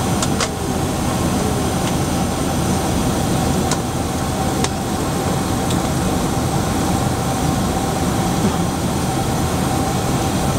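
Steady cabin noise of a Boeing 767-300ER in flight: jet engines and rushing air, with a faint steady whine and a few faint clicks.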